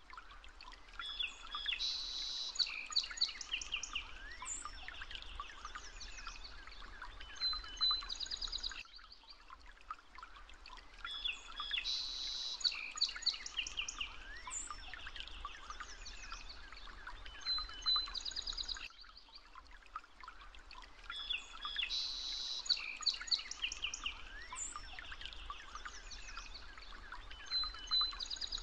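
A looped recording of birdsong: many small birds chirping and trilling over a faint steady hiss, the same stretch of about ten seconds repeating three times.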